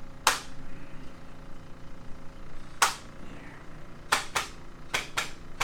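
A series of six sharp, irregularly spaced clicks: one early, one near the middle, and four in quicker succession in the last second and a half.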